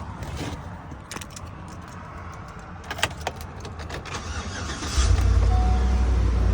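A few sharp clicks, then about five seconds in the 2013 Chevy Avalanche's 5.3-litre V8 starts and settles into a steady idle.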